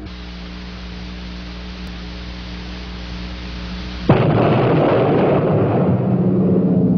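Soundtrack effect: a steady hissing drone with a faint low hum, then about four seconds in a sudden loud crash, like a gong strike, that rings on as a sustained low tone.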